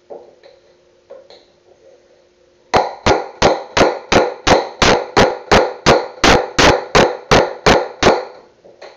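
Hammer driving a wood chisel into a board: a few light taps, then a steady run of about sixteen hard blows, roughly three a second, that stops abruptly.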